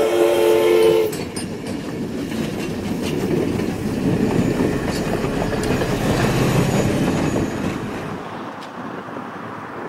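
The whistle of the Essex Terminal 9 0-6-0 steam locomotive sounds a steady chord of several notes that cuts off about a second in. Then the passenger cars roll past with a rumble and wheels clicking over the rail joints, fading near the end.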